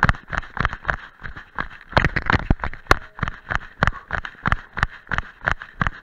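Running footsteps on a rocky dirt trail, shoes striking gravel in a quick, even rhythm of about three footfalls a second as the runner goes downhill.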